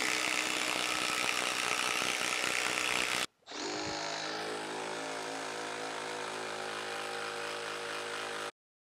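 Two Milwaukee M12 12-volt impact drivers, the regular M12 and the hydraulic M12 Surge, each driving an 8-inch Timberlock screw into a hardwood log, one after the other. The first run is a loud, dense hammering clatter. After a short break about three seconds in, the second run is quieter and steadier, with a clear hum, and it stops abruptly near the end.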